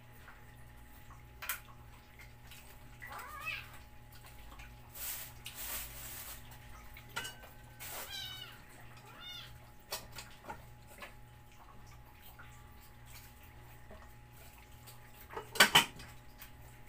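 Several cats meowing for food in short calls a few times. There are small clicks and scuffles in between, and a sudden loud double bang near the end.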